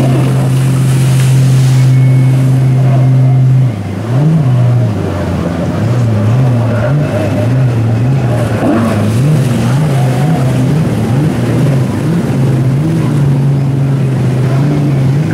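A watercraft engine running with a steady drone. About four seconds in its pitch starts wavering up and down repeatedly, then it settles steady again near the end, with water splashing underneath.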